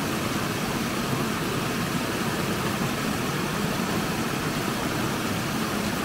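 Muddy storm runoff pouring down a short step in a swale spillway, a steady rush of water. It is a heavy flow after the first rains following a dry summer, more water than the swale was built to carry.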